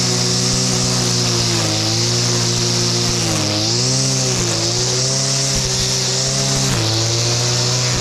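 Shindaiwa two-stroke brushcutter running at cutting speed, its Speed Feed line head whirring through grass along a path edge. The engine note sags and recovers a few times as the line takes load, most clearly around two seconds in, between three and a half and four and a half seconds, and near the end.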